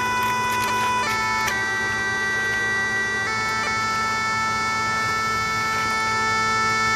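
Background music: a melody of long held notes over a steady low drone, the notes changing about one and one and a half seconds in and again near the middle.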